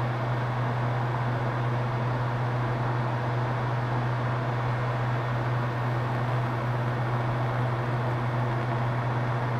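Hot air rework station blowing steadily: a constant rush of air with a low hum, reflowing the fluxed solder balls on a reballed BGA chip so they settle back into place.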